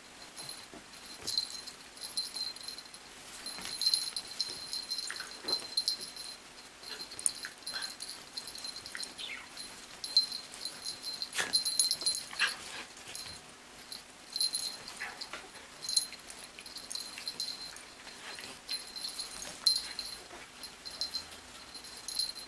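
Two 12-week-old puppies play-wrestling: scattered short high yips and whimpers with a low play growl now and then, over scuffling of paws and bodies on the rug.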